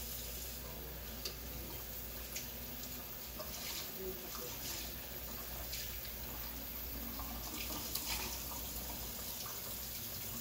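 Kitchen tap running into a sink, a steady rush of water with a few light clicks, turned on and off with a knock at either end.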